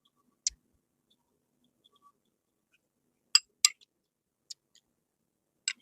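Eating utensils clinking lightly against a bowl: about half a dozen brief, sharp clicks spaced irregularly, with near quiet between them.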